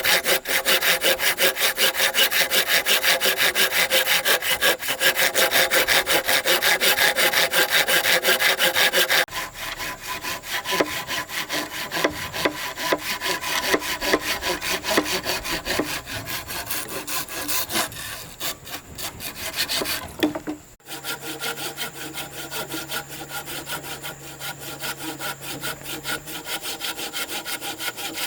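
Wood being sawn by hand with rapid, steady back-and-forth strokes. It is loud for about the first nine seconds, then quieter, changing abruptly again about twenty-one seconds in.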